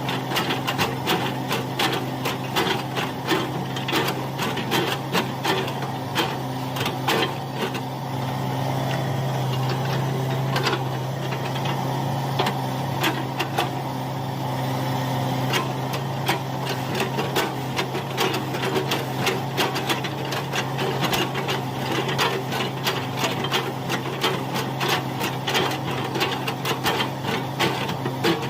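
Hitachi hydraulic excavator's diesel engine running steadily, with rapid, irregular clattering knocks from the work over it. Between about 8 and 16 seconds in, the engine grows louder and the knocks thin out.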